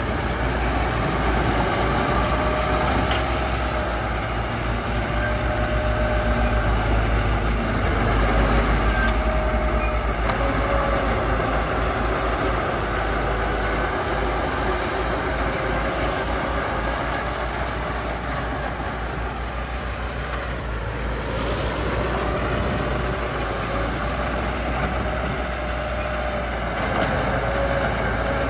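Diesel engine of heavy earthmoving equipment running steadily under work, with a wavering whine over the rumble.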